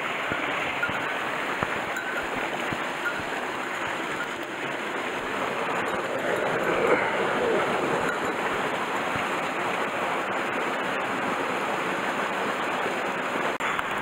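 Shallow mountain stream running over rocks: a steady rushing of water.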